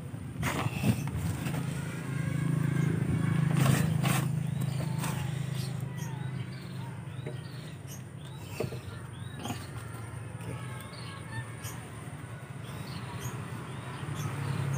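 Gloved hands scooping and pressing loose, crumbly potting soil into a woven grow bag, with scattered crunches and rustles. Under it runs a steady low hum, loudest a couple of seconds in. Faint repeated high chirps come in the second half.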